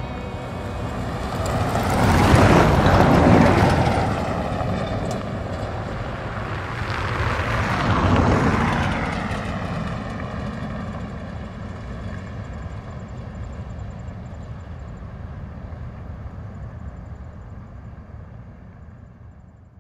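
Two vehicles pass by, the first swelling and fading about three seconds in, the second about eight seconds in, with a falling pitch sweep as each goes past. The second fades slowly away.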